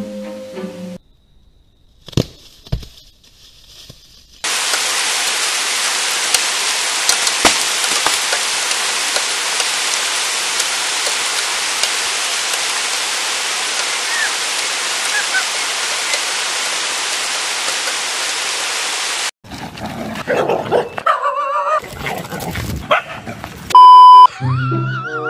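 A steady, even hiss for about fifteen seconds that starts and stops abruptly. Near the end comes a loud, steady test-tone beep of about half a second, the kind played with TV colour bars.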